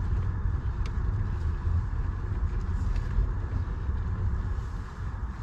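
A car driving along: a steady low rumble of engine and tyre noise.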